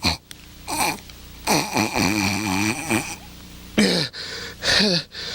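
The voice of Bear, the puppet character, making a series of loud, nasal vocal sniffs as he tries to smell with a clogged nose. There are about five short sniffs, with one long, wavering one in the middle.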